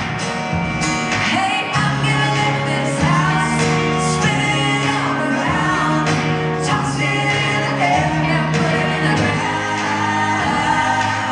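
Live country band playing, with a woman singing lead into a microphone over guitar, bass and drums.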